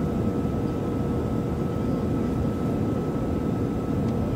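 Steady jet engine and airflow noise heard inside an airliner cabin on the landing approach, with a faint steady whine running through it.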